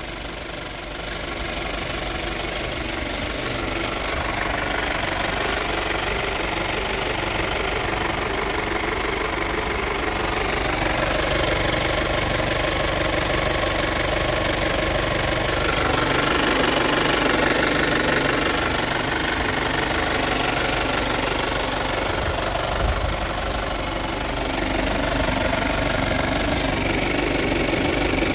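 Kia Sportage's four-cylinder common-rail diesel (CRDi 16V) idling steadily, heard close up in the open engine bay.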